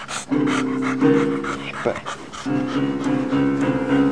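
Held chords on an electronic keyboard, changing about once a second, with a dog panting close by, quick breaths over the first second.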